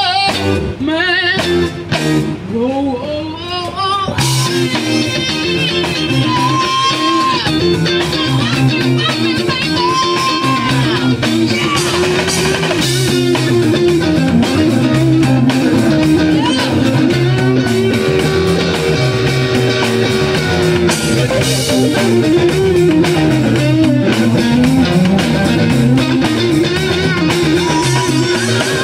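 Live funk band playing through a small amplified sound system: electric guitars over a repeating bass line and a drum kit beat, with a woman singing near the start.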